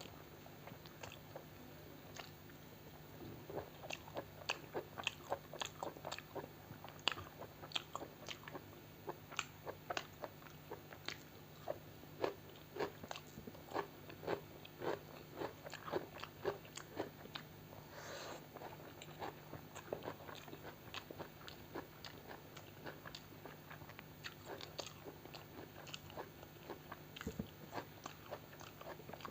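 Close-miked chewing and biting of food, a rapid run of small crunches and wet mouth clicks, busiest a few seconds in and thinning out towards the end.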